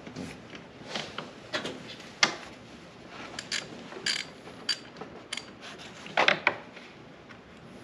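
Irregular clicks, knocks and light clatter of hand tools and parts while the fuel tank is being unbolted from a Honda Foreman 500 ATV. The loudest is a quick group of knocks about six seconds in.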